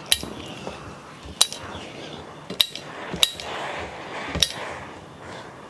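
Clothes iron being handled during pressing: five sharp clinks and knocks about a second apart as it is set down and moved, with a soft rustle between them.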